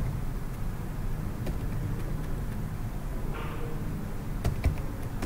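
A few computer keyboard keys clicking sharply, twice close together near the end, over a steady low background hum.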